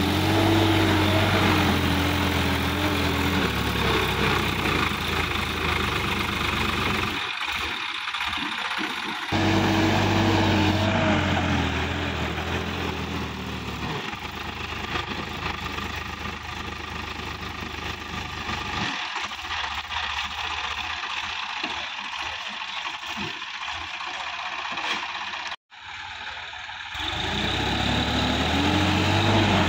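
Sonalika DI-50 RX Supreme tractor's diesel engine working hard under load, pulling up a muddy bank with its front wheels lifting. Its pitch rises and falls as it is revved, and the sound breaks off abruptly a couple of times.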